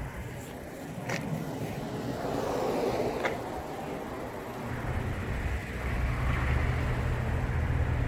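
Wind rumbling on a handheld phone's microphone, with a couple of light clicks in the first few seconds.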